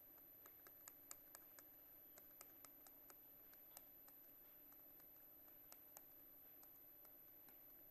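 Near silence: faint, irregular light clicks and taps over a steady low room hiss, with a thin high-pitched electrical whine.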